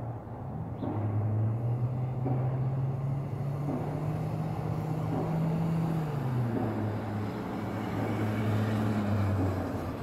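A low engine drone that rises in pitch in the first second and drops about six and a half seconds in. Faint thuds repeat roughly every second and a half underneath it, typical of distant pile driving at a railroad bridge.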